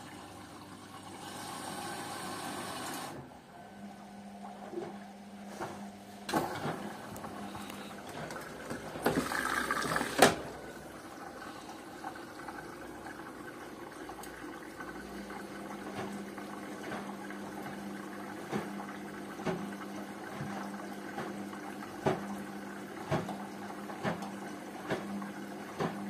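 Hotpoint Ariston and Rainford front-loading washing machines washing: water rushing and sloshing in the drums over a steady machine hum, with irregular knocks and clicks from the tumbling load. The loudest rush of water comes about ten seconds in.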